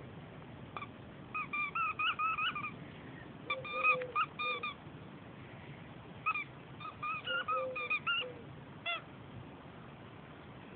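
A dog's rubber squeaky toy squeaked as the dogs chew it, in quick runs of short, high squeaks. There are three bursts of rapid squeaks and a last single squeak near the end.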